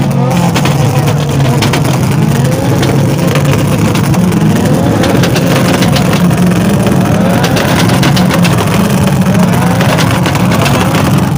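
Car engine running loud and being revved, its pitch rising several times over a steady low drone, with sharp crackles throughout.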